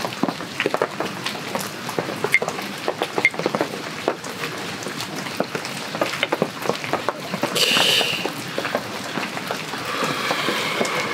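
Beer poured from a bottle into a pint glass, with a short splashing hiss about eight seconds in and foam fizzing near the end, against heavy rain dripping in irregular drops.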